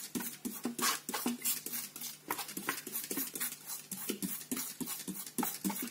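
Trigger spray bottle being pumped again and again, a quick series of short hissing spritzes of water onto potting soil, a couple each second.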